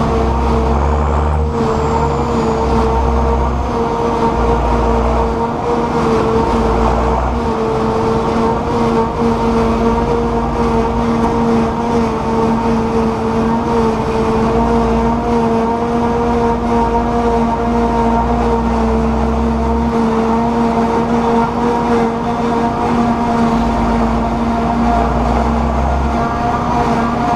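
John Deere 6910S tractor's six-cylinder turbo diesel engine running loud and steady at an even speed, holding one unchanging note throughout.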